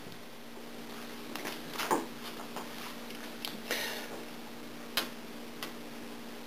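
Light clicks and scrapes of a sheet-aluminium airplane rib and fluting pliers being handled on a wooden workbench, with a sharp click about five seconds in as the pliers go onto the rib's flange. A steady low hum runs underneath.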